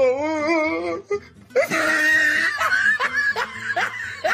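Giggling laughter in a comic music track: a warbling, wavering voice first, then a held high squeal and a run of quick rising giggles.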